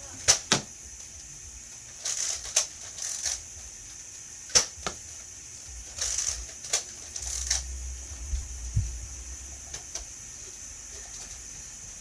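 Nerf blaster firing foam darts: a series of sharp snaps and clacks, unevenly spaced, some in quick pairs.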